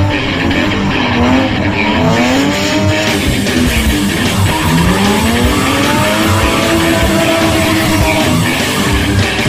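Drift car engine revving up and down in repeated rising and falling sweeps, with tyre squeal, mixed with guitar music.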